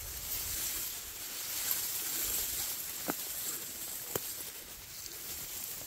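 Dry reeds and tall grass rustling and brushing as someone creeps slowly through a reed bed, a steady hiss, with two small sharp clicks about a second apart a little past the middle.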